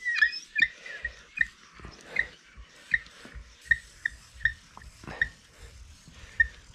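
Applicator pad of a rain-repellent glass coating bottle squeaking as it is dragged across a car windshield in strokes: a quick, uneven series of short squeaks, about two a second, with soft knocks under them.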